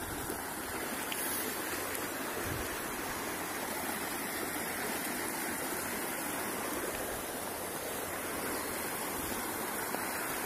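Muddy rainwater runoff rushing along a narrow earthen channel: a steady, even rush of water.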